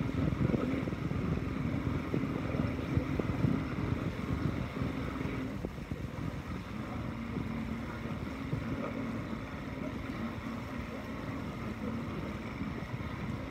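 Boat motor running steadily, its hum stepping slightly lower in pitch a little past halfway, with wind buffeting the microphone.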